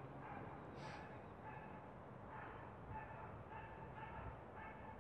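Faint, repeated short calls of an animal, about two or three a second, with one sharp click about a second in.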